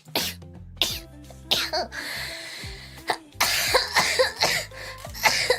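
A young woman coughing repeatedly, with several sharp coughs and a longer hoarse, noisy stretch in the middle. Steady background music plays underneath.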